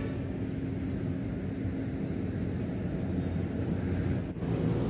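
Outdoor wind rumble on the microphone over a steady low mechanical hum.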